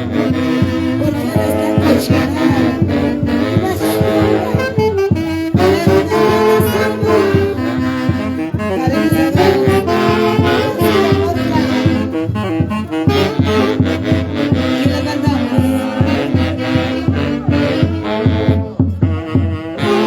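Live Huancayo orchestra playing an instrumental passage, with saxophones carrying the melody over a steady percussive beat.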